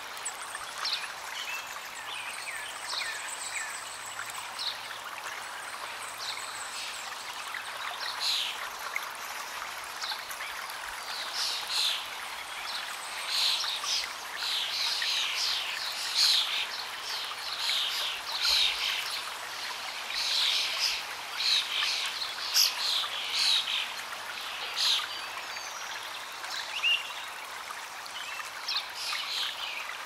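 Shallow stream running steadily over rocks, with small birds chirping over it; the chirps come thick from about ten seconds in and thin out again near the end.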